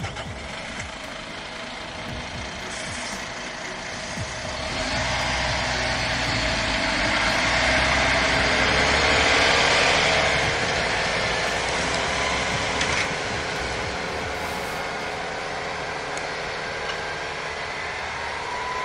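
Heavy diesel engines of a MAN truck and a tractor working under load to get the truck and its loaded forage trailer out of mud. The engine noise swells about five seconds in, peaks a few seconds later, then eases off.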